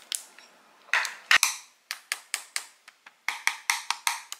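Pieces of candied sweet potato (bbaseu) with a hardened sugar coating being tapped and moved with chopsticks and tongs on a glass tray, giving a run of sharp, hard clicks and knocks that come faster near the end.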